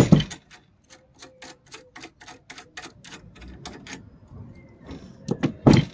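Ratcheting spanner clicking steadily, about five clicks a second, as a nut is backed off a bolt, fading after a couple of seconds. A sharp metal knock at the start and a few louder clunks near the end.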